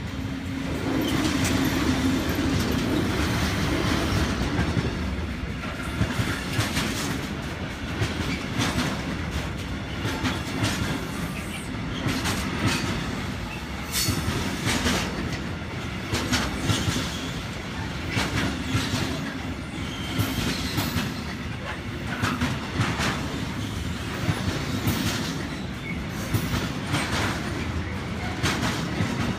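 A train running past on the rails, getting louder over the first second or two and then holding steady, with the clickety-clack of its wheels over the rail joints repeating through most of it.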